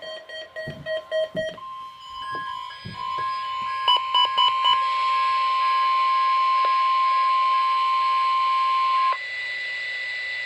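NOAA Weather Radio alert tones sent during a weekly test. A rapidly pulsing electronic beep of about four pulses a second runs first. About a second and a half in, the steady 1050 Hz warning alarm tone starts and holds for about seven seconds, then gives way to a quieter, higher steady tone.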